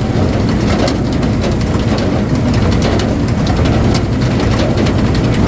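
Engine of a firewood log splitter running steadily, with scattered sharp clicks and knocks over it.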